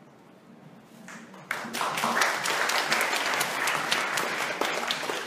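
Audience breaks into applause about a second and a half in: dense clapping with many sharp individual claps.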